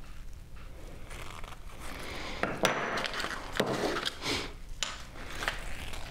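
Crinkling, rustling handling noise from gloved hands, with a few sharp light knocks in the middle stretch.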